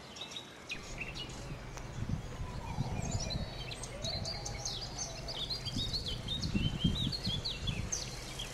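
Small birds chirping and tweeting in quick, repeated short calls over a low, uneven outdoor rumble that starts about a second in.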